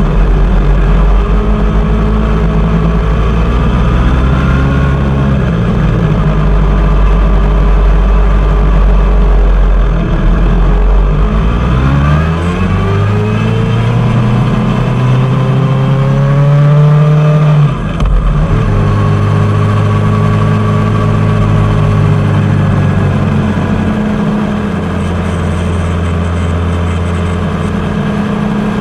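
Suzuki GSX-R750's inline-four engine running under way: its pitch climbs steadily from about 11 seconds in, drops abruptly just before 18 seconds, then runs steady.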